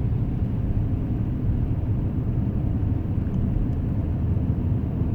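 Steady low rumble of a 2010 Acura MDX driving at an even pace over a frozen, snowy road: engine and tyre noise heard from inside the cabin.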